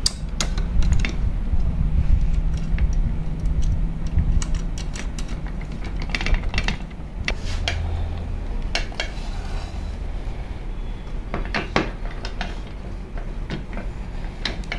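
Scattered metal clinks and clicks as a bolt and nut are fitted and tightened with an Allen key at the handle pivot of a metal drill stand, over a low steady hum.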